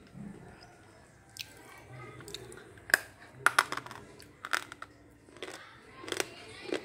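Close-up biting and chewing of a dry slate pencil (balpam): a series of sharp, dry crunches and snaps, spaced about half a second to a second apart, as the hard stick is bitten off and crushed between the teeth.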